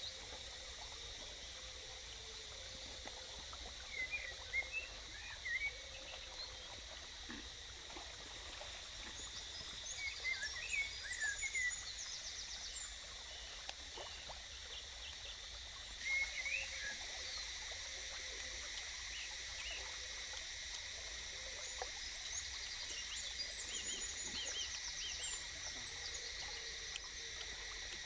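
Forest ambience: a steady high insect drone with clusters of short bird chirps coming and going. A few faint knocks of a knife on a wooden cutting board.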